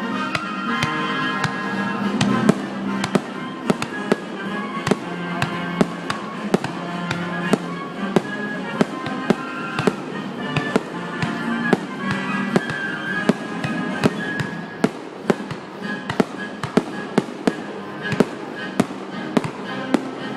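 Fireworks bursting in a dense, irregular string of sharp bangs, a few each second, with music playing underneath.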